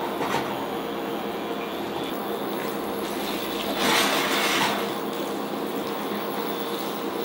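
Spaghetti in carbonara sauce sizzling and being stirred with a spatula in a frying pan on an induction hob, over a steady faint hum. About four seconds in, the pan is tossed and the saucy pasta sloshes louder for about a second.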